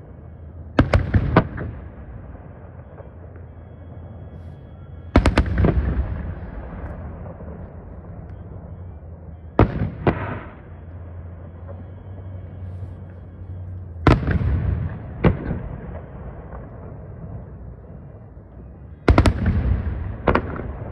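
Aerial fireworks shells bursting: five clusters of sharp bangs about every four to five seconds, each a few booms in quick succession trailing off in a rumbling echo.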